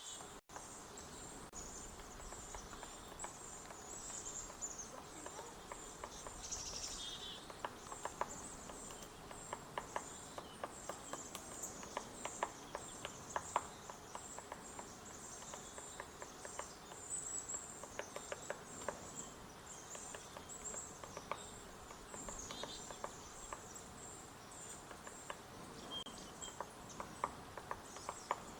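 Hairy woodpecker pecking at wood: many short, sharp taps at an irregular pace, some in quick little clusters, over a steady high-pitched insect chorus.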